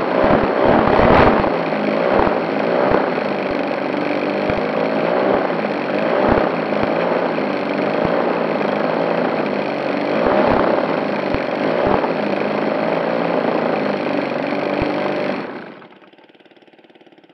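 Engine of a radio-controlled Fokker D.VII model biplane running steadily at low power, propeller turning, heard close up from a camera on the airframe, with scattered short knocks. The engine cuts off about fifteen seconds in.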